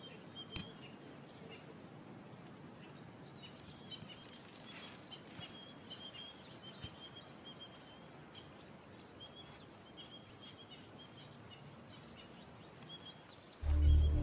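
Quiet bush ambience with a small bird's repeated high chirps and a brief rustle of leaves. Music with low sustained notes comes in sharply near the end.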